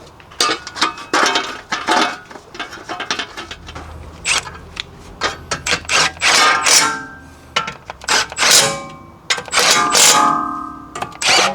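Hand tools at work on metal car parts while a heat shield is refitted: a ratchet clicking and irregular metallic clinks and taps, some of them ringing briefly.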